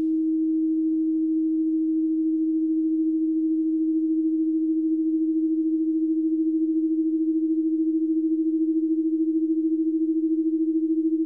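A single steady electronic sine tone, low in pitch and with no other sound mixed in. After a few seconds its loudness takes on a fast, regular wavering, like two close tones beating.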